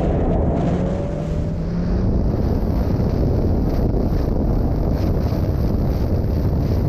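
Racing snowmobile accelerating hard out of a corner, its engine and track noise largely buried under heavy wind buffeting on the camera microphone. A steady low engine note is heard for about the first two seconds, then gives way to the wind.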